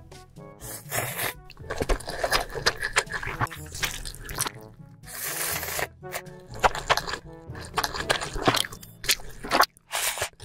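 Background music over close-miked eating sounds: crunching and chewing of big mouthfuls of food.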